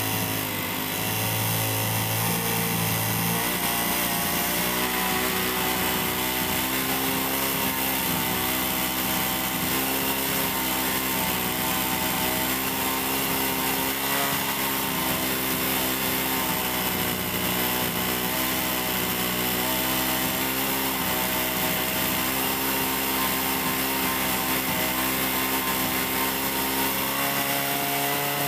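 Honda CD70's small single-cylinder four-stroke engine idling steadily while its carburettor mixture screw is turned, the idle pitch shifting slightly now and then. The mixture is being set leaner to cure black smoke from a rich-running engine.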